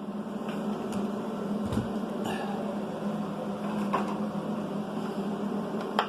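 Steady electric whirring hum of the powered-up RC truck's small ESC cooling fan, with a few light clicks and a soft thump from the truck being handled.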